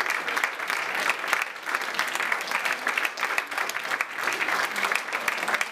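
A small audience applauding: many hands clapping steadily and densely, without letting up.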